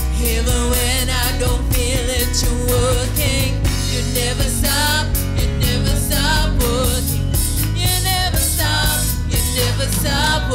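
Live gospel worship music: a woman sings lead with held, wavering notes over a Pearl drum kit and electric bass guitar keeping a steady beat.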